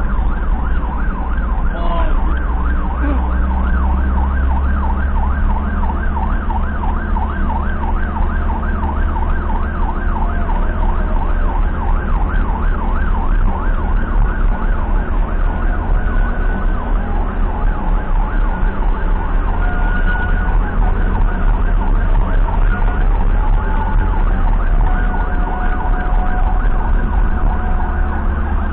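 Ambulance siren sounding a fast, repeating up-and-down yelp, heard from inside the moving ambulance over a heavy low rumble of engine and road.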